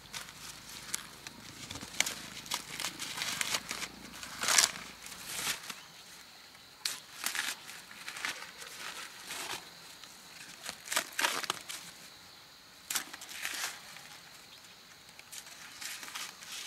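Irregular dry rustling and crackling: short scattered crackles of something papery or brittle being crumpled or disturbed, with the loudest about four and a half seconds in.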